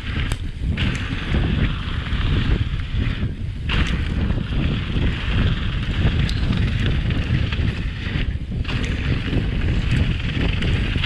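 Wind buffeting the microphone and tyres rolling fast over dirt singletrack on a Pipedream Moxie hardtail mountain bike during a downhill run. The tyre hiss drops out briefly three times, and a few sharp clicks come from the bike.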